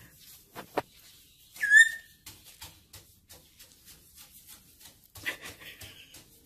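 Black-headed caique hopping around on a wooden dresser top, its feet tapping on the wood in quick, irregular clicks. One short whistle, falling slightly in pitch, about two seconds in.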